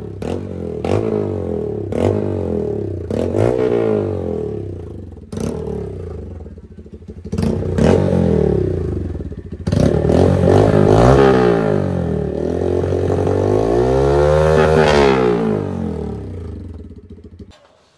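Bajaj Pulsar N160's single-cylinder engine revved repeatedly through Austin Racing silencers in a dual-side, four-silencer exhaust, with short blips and sharp cracks at first. The revs climb and hold higher about ten seconds in and again a few seconds later, then the engine cuts off suddenly just before the end.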